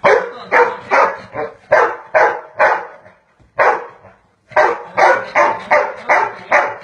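Dog barking repeatedly, short sharp barks about two a second, with a brief pause near the middle before the barking picks up again.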